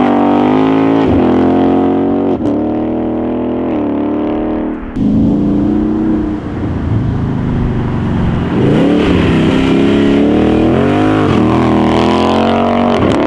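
Ford Mustang GT's 5.0 V8 through a 76 mm DD Exhaust valved aftermarket exhaust, accelerating hard away through several gear changes. It then revs up again as the car comes back past.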